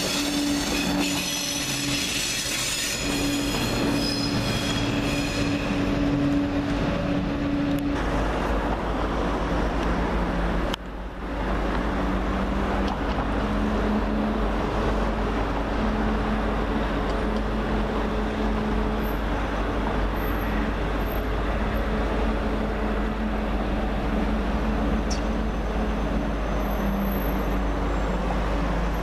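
TGV high-speed train rolling slowly over station points, its wheels squealing with several high, steady tones for the first several seconds. About eight seconds in this gives way to a steady low hum and rumble.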